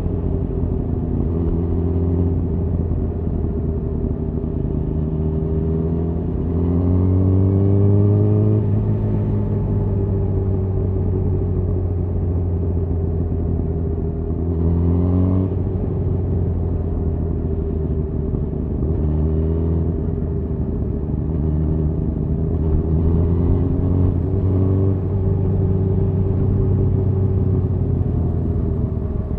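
Suzuki GSX-R1000R's inline-four engine through a Yoshimura R-11 exhaust, running at steady riding revs with road and wind noise. The revs rise under acceleration about seven seconds in and sharply again around fifteen seconds, with smaller rises near the end.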